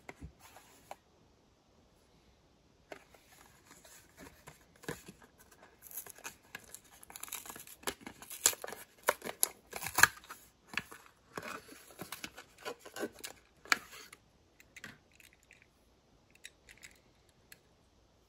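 Plastic blister pack and cardboard backing card of a Hot Wheels die-cast car being torn open, a dense run of crackling and sharp snaps that is loudest about halfway through. A few light clicks follow near the end as the toy car is handled.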